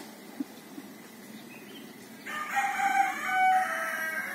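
A single long bird call, about two seconds, starting about two seconds in; it holds one pitch and then steps down slightly.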